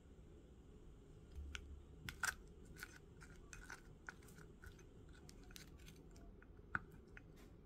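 Wooden spoon stirring yogurt and crisp freeze-dried strawberries in a small ceramic bowl: scattered soft clicks, scrapes and crunches that start about a second and a half in, the sharpest about two seconds in and again near the end.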